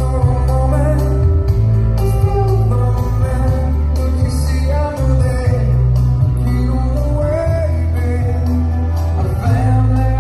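A song with singing and guitar played loud through a PA system of Kevler ZLX 15 passive speakers and 18-inch subwoofers, with strong bass throughout.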